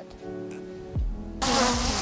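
DJI Mini 3 Pro quadcopter's propellers buzzing close by as it is flown back in. The buzz starts about a second and a half in, over wind rumbling on the microphone, after a moment of faint steady background tones.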